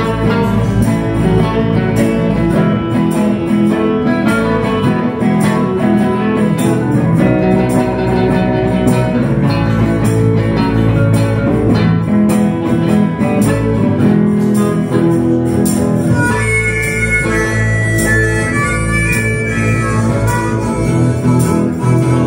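Live blues band playing, led by guitars, with a harmonica wailing on top in the last part.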